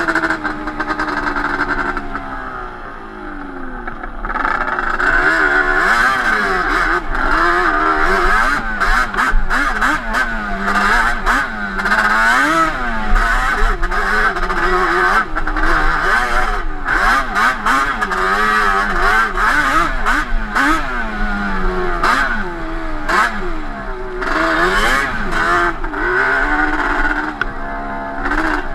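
Yamaha Banshee 350 twin-cylinder two-stroke engine, on Toomey T5 expansion-chamber pipes, revving up and down over and over as the ATV is ridden. It drops to low revs a couple of seconds in, then climbs again. Frequent short knocks run through it.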